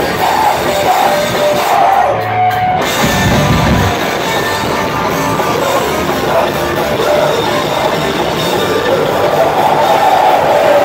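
Live rock band playing loudly: electric guitars, bass and drum kit with vocals.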